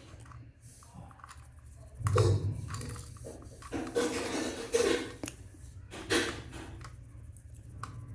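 Small plastic toy-kit parts and screws being handled and fitted by hand: irregular clicks, taps and rattles, with a few louder clattering bursts about two, four and six seconds in.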